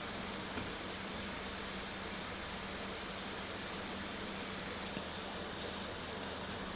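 Steady background hiss with a low electrical hum, with a few faint clicks about five seconds in and near the end.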